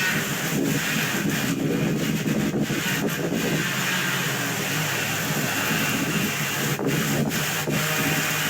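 A distant saw cutting through oak wood, a steady rasping hiss over a motor hum whose pitch drops a little about halfway through as the cut loads it. Wind is rumbling on the microphone.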